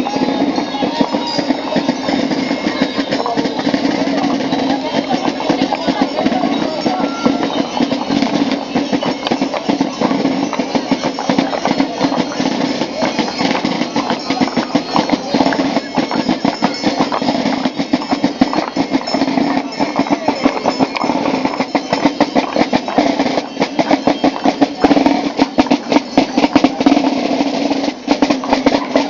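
Carnival street band of drums and brass, trombone among them, playing a steady marching dance beat for the Gilles, with the dense jingling of the dancers' costume bells over it.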